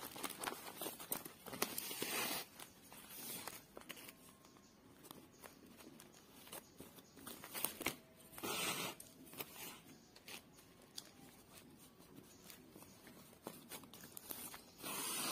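Woven plastic sack crinkling and rustling under the hands as a needle and wool yarn are worked through it, with many small clicks. Three longer swishes of the yarn being drawn through the weave: about two seconds in, near the middle, and at the end.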